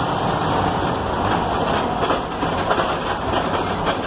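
Moving truck heard from inside the cab: steady engine and road rumble with scattered clicks and rattles.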